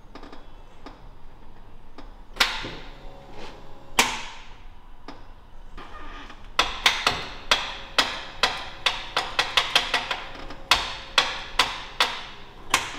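Sharp taps or knocks: two single ones a couple of seconds apart, then from about halfway in a quick, irregular run of them, about three or four a second.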